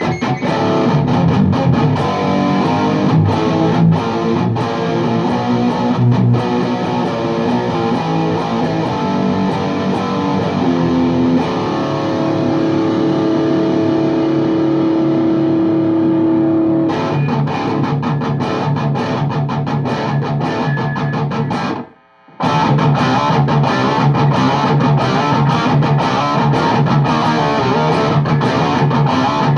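Les Paul Custom played through a VHT Deliverance D60 amp with two KT88 power tubes into a Bogner 4x12 cabinet loaded with Vintage 30s, miked with an SM57: high-gain distorted riffing. About twelve seconds in, a held chord rings out for several seconds before the riffing picks up again, and the playing stops dead for a moment about 22 seconds in before resuming.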